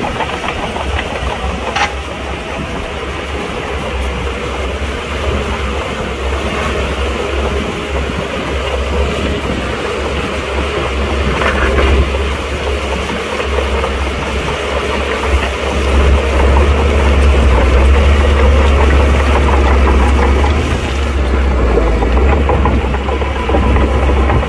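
Shantui crawler bulldozer's diesel engine running, a steady deep rumble that grows louder about two-thirds of the way through.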